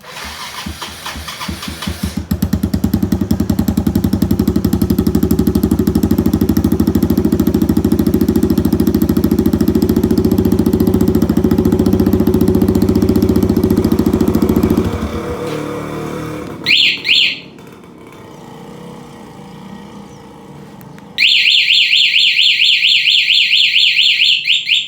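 A motorcycle engine starts and runs steadily for about fifteen seconds, then stops. An anti-theft alarm then gives two short chirps and, for the last few seconds, sounds a loud, fast-warbling siren.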